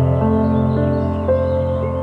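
Background music: calm, ambient-style music with sustained notes changing about every half second over a held bass note.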